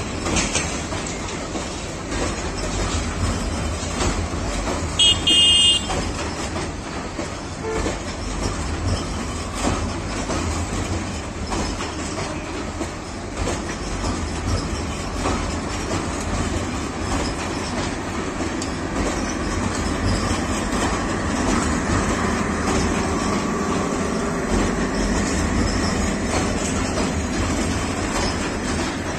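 Coaches of a Bangladesh Railway intercity express rolling across a steel girder bridge: a steady rumble with the clatter of wheels. About five seconds in, a short, loud, high-pitched toot.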